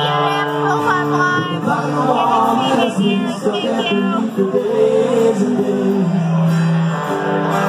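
A live rock band playing loud through a PA: a male lead vocal sings held and gliding notes over strummed acoustic guitar, electric guitars and drums.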